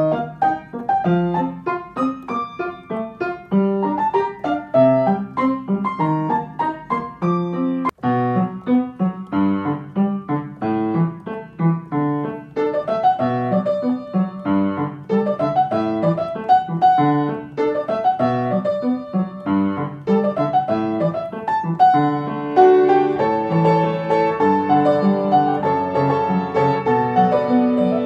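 Background piano music: a tune of quick, separate notes.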